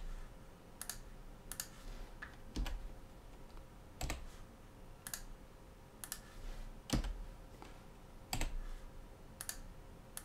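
Computer keyboard keys and mouse buttons clicking: a dozen or so separate sharp clicks, irregularly spaced about once a second, over a faint steady hum.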